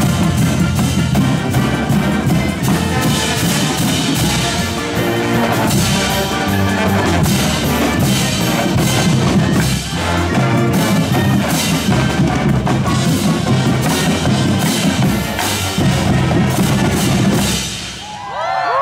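Marching-style pep band of brass, saxophones, drums, crash cymbals and marimbas playing a loud, rhythmic piece with frequent cymbal and drum hits. The music stops shortly before the end, and voices start up.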